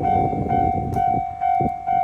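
Japanese level-crossing warning bell ringing in even pulses about twice a second, over the rumble of a train passing that dies away about a second in, followed by a few clicks.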